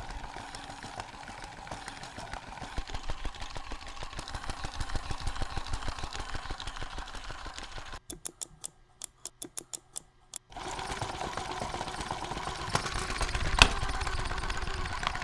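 Small electric motor and plastic gears of an animated parrot toy, driven by a bench power supply above its rated voltage, running its flapping and walking mechanism with a fast, even rattle. Partway through it drops out to a quick run of small clicks from the power supply's controls. It then resumes slightly louder at 10.1 V, with one sharp click a couple of seconds before the end.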